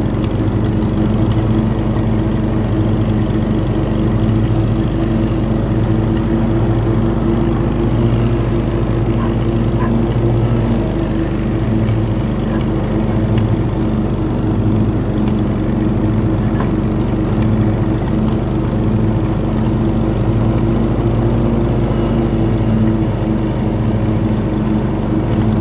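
Riding lawn mower running steadily while mowing grass, its engine a constant hum with the cutting deck driven by freshly fitted new belts.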